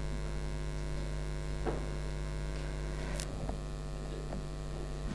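Steady electrical mains hum in the sound system, with two faint clicks, one about one and a half seconds in and one about three seconds in.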